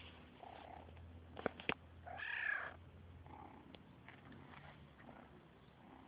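Kitten purring as a steady low hum, with a short meow just after two seconds in. Two sharp clicks come shortly before the meow, and the purring fades out about three seconds in.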